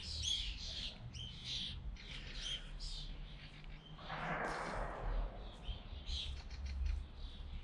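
Songbirds chirping and twittering, many short high calls overlapping, with a brief soft rush of noise about four seconds in.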